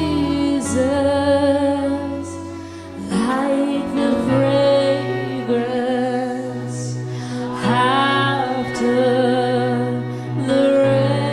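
Slow worship song: a woman singing long, sliding held notes over instrumental accompaniment with steady held low notes.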